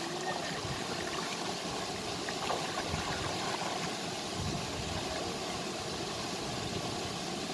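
Steady rush of a stream pouring over a small rocky waterfall into a pool, with faint splashing from a person swimming.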